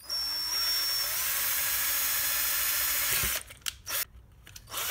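Handheld cordless drill running, drilling a hole through a small RC truck chassis. It runs steadily for about three seconds and stops, gives a couple of short blips, then starts again near the end for the second hole.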